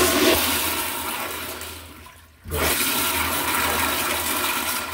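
American Standard Afwall toilet flushing through its concealed wall-mounted flush valve: a loud rush of water that trails off, then a second surge that starts abruptly about halfway through and runs steadily until it fades near the end.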